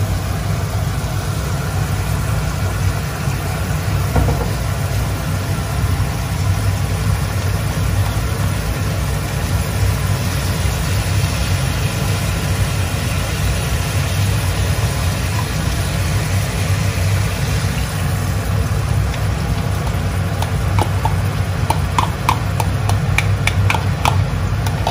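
Steady low rumble of kitchen stove-side noise under a wok of sauce heating on a gas burner. Near the end comes a run of light clicks as a metal spoon scrapes cream out of a plastic bowl into the wok.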